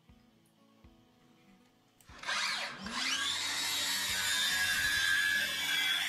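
Makita circular saw with a dust-collection hose starting up about two seconds in, spinning up quickly, then running steadily with a high whine as it cuts along a stack of wood flooring planks.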